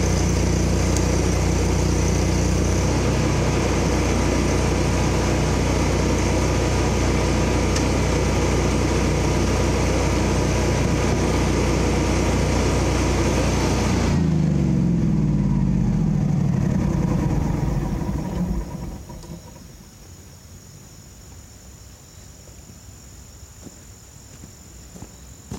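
Engine idling steadily, then shut off about fourteen seconds in, its pitch falling as it spins down over a few seconds to a stop.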